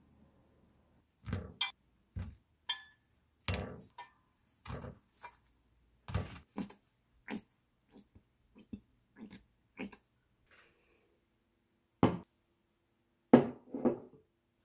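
Dishes being handled and set down on a hard counter: a string of short, separate clinks and knocks with silence between them, the loudest two near the end.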